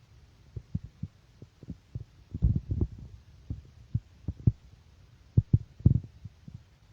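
A series of irregular soft, low thuds, about fifteen, some coming in quick pairs and clusters, the loudest in the second half.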